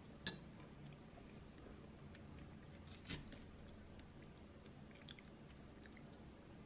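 Quiet room with a few light clicks, the loudest about three seconds in: a metal fork tapping a ceramic salad bowl as food is picked up, with faint chewing.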